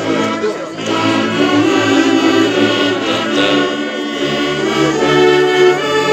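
Church orchestra of violins, saxophones and clarinets playing a hymn in slow held chords that change about every second.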